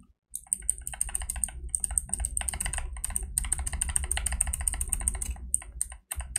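Typing on a computer keyboard: a fast, uneven run of key clicks with a few short pauses.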